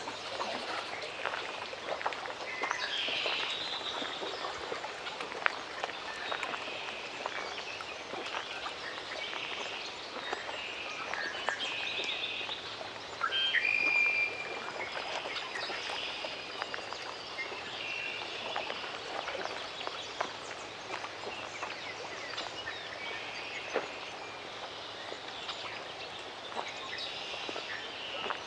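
Lakeside forest ambience: birds chirping and calling over a steady background haze scattered with small clicks, typical of lapping water. The loudest moment is a longer bird call a little past 13 seconds in.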